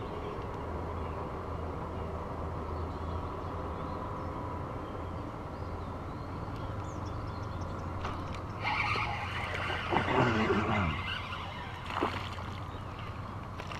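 A small hooked largemouth bass splashing and thrashing at the water's surface beside the kayak for a couple of seconds near the end, with a sharp splash or knock at the very end of the struggle. A steady low hum runs underneath throughout.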